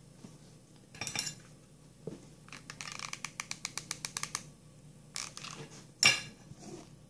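Hot glue gun in use: a quick run of clicks, about nine a second, as its trigger is worked, between rustles of stiffened satin petals being handled, then a sharp knock about six seconds in as the gun is set down on the table.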